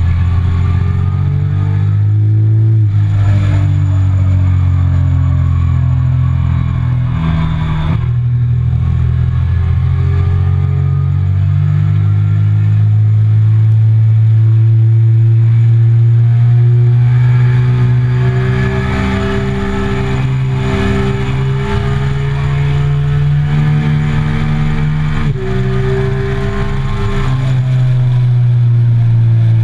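Triumph Speed Triple 1050's inline three-cylinder engine running hard under load, its pitch climbing steadily for a long stretch as the bike accelerates, then stepping down suddenly at an upshift about 25 seconds in. Wind rushes over the bike, growing louder at speed in the second half.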